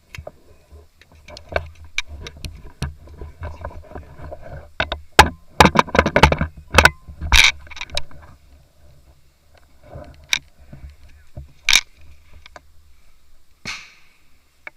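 Airsoft gunfire: irregular sharp cracks, several of them close together and loudest in the middle, with single shots later on, over the rustle and rumble of a player moving.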